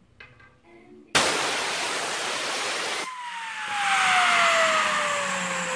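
Compressed-air blow gun hissing in a loud burst of about two seconds, spinning up a metal fidget spinner. When the air cuts off, the spinner's bearing whirs on with a steady whine whose pitch falls smoothly as it slows down.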